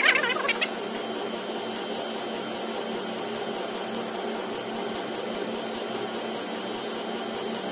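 Small air pump running with a steady hum, supplying air through tubing to the pneumatic bending actuators of a 3D-printed soft robot. A few brief high squeaks come right at the start.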